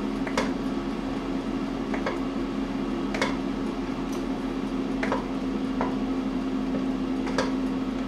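A steady hum runs under about six sharp clicks, one every second or two, like cutlery or utensils tapping on dishes.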